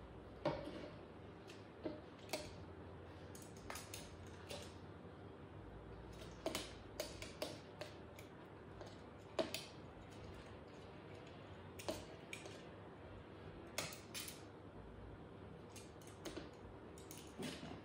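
Metal kitchen tongs clicking shut and tapping against a plastic jug and bowl as sliced vegetables are lifted across and packed in. The clicks are sharp and irregular, a second or a few apart, with the loudest about half a second in and near the middle.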